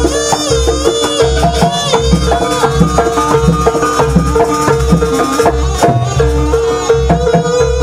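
Jaranan music played by a live traditional ensemble: hand drums and a deep beat about twice a second under a held tone and a wavering, ornamented melody.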